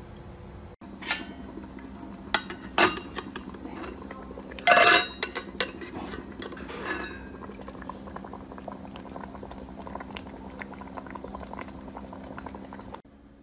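Metal tongs clanking on a stainless steel pot lid as it is gripped and lifted off, the loudest a sharp metal scrape about five seconds in, with a few lighter clinks around it. Water simmers steadily in the pot underneath.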